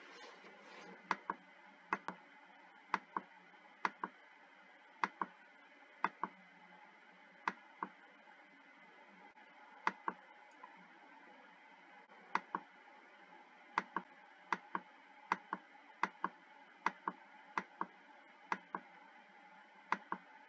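Computer mouse button clicked over and over to advance through PDF pages, sharp little ticks about once a second, often two in quick succession, over faint room hiss.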